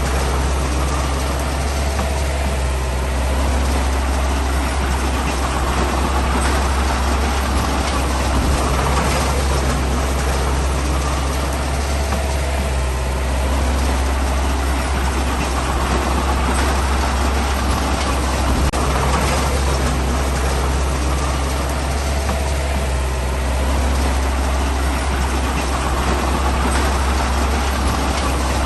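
Heavy diesel engine of earthmoving machinery running with a steady deep rumble, swelling under load about every five seconds.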